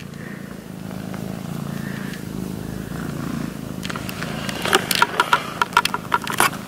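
Kitten purring steadily close to the microphone while being stroked. A quick run of sharp clicks comes in the last two seconds.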